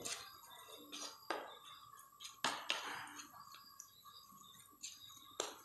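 Plastic spatula stirring a thick fish-and-flour batter in a plastic bowl: soft scraping with a few light knocks against the bowl, the loudest about halfway through followed by a short scrape.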